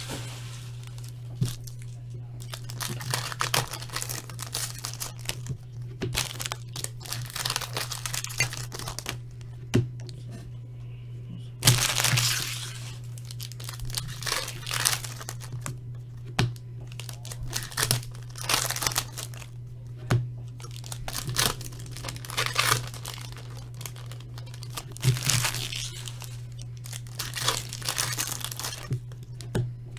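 Foil wrappers of hockey trading-card packs being torn open and crinkled, in irregular bursts with a sharp tear about 12 seconds in. A steady low hum runs underneath.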